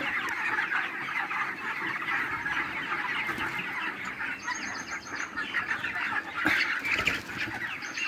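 A large flock of broiler chickens chirping and clucking at once in a continuous dense chatter. A brief run of high, rapid chirps rises over it about four and a half seconds in.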